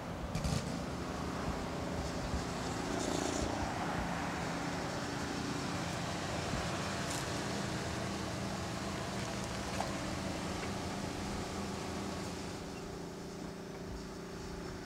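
Steady vehicle engine hum over outdoor background noise, with a few faint clicks, easing off slightly near the end.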